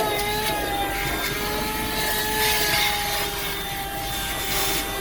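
Corded Buture handheld car vacuum running with a steady motor whine that dips slightly in pitch about a second in. Bursts of rushing hiss come about two seconds in and again near the end as the nozzle is worked over the car's interior and sucks up debris.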